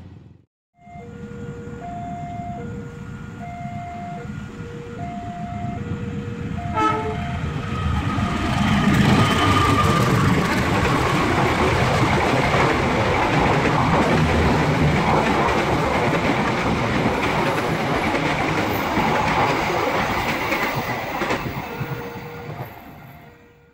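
A level-crossing warning signal sounding two alternating tones, high then low, roughly once a second. From about eight seconds in, a passenger train passes at speed, its wheels rumbling and clattering over the rails for about fourteen seconds before the noise fades away.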